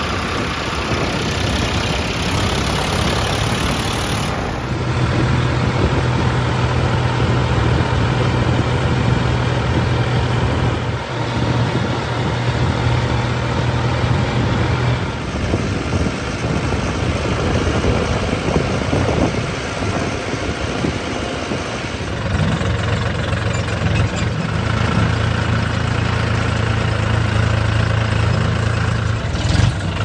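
Diesel engines running steadily, a farm tractor's and a JCB 3DX backhoe loader's, across several shots with abrupt changes between them.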